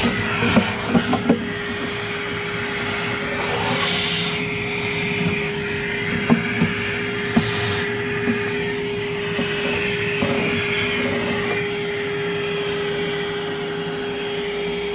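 Cordless Milwaukee Packout wet/dry vacuum running on high, a steady whine with rushing air as it sucks debris through the hose into a cyclone dust separator. A few sharp clicks and knocks come in the first second or so and again around six to seven seconds in.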